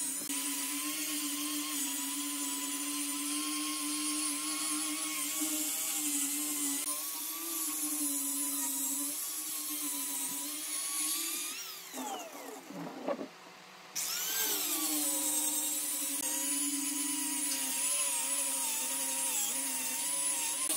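Electric angle grinder with a sanding pad running steadily, sanding a wood-slice and resin tabletop. About twelve seconds in its whine falls away as it winds down, and about two seconds later it rises again as it spins back up.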